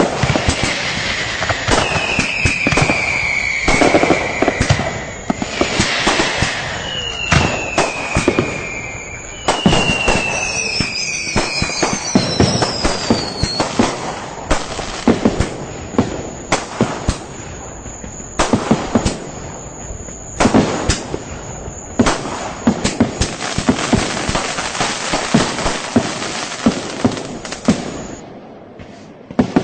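Firecrackers and fireworks going off in a dense, irregular run of sharp bangs. In the first half several whistling fireworks glide down in pitch among the bangs, and near the end the bangs thin out.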